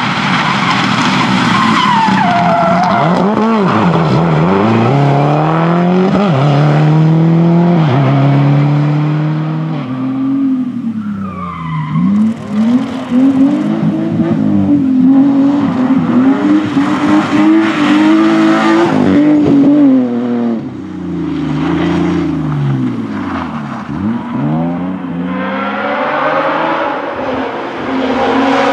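Rally cars passing at speed one after another, first a Subaru Impreza's turbocharged flat-four and later a BMW 3 Series Compact. The engine notes rise and drop again and again through gear changes and lifts.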